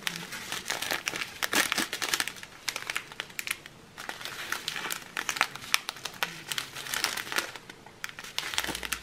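Small clear plastic zip bags of round diamond painting drills crinkling as they are handled, a continuous run of quick, irregular crackles.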